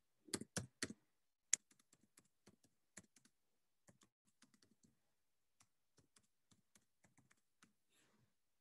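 Typing on a computer keyboard: a few louder key strikes in the first second and a half, then a run of lighter, irregular keystrokes.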